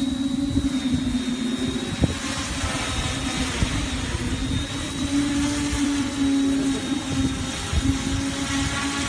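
DJI hexacopter flying close overhead, its six motors and propellers giving a steady whirring hum that rises slightly in pitch about halfway through, over an uneven low rumble.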